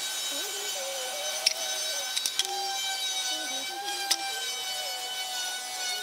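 Light clicks and taps of a wooden try square and pencil being set down on timber boards while marking them out, sharpest about one and a half seconds in and again near four seconds. Behind them runs a steady whine with a wavering lower tone.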